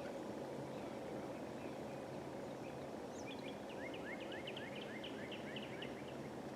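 A small bird sings a quick trill of short, down-slurred chirps, about five a second, starting about halfway through and lasting a couple of seconds. Underneath is a steady low background rumble.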